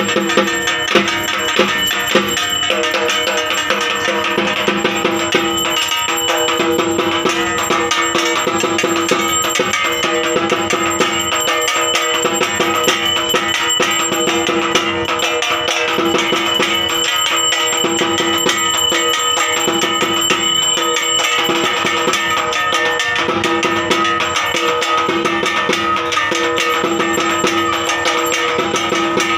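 Fast, continuous festival drumming with metallic percussion, steady ringing tones held over the beat.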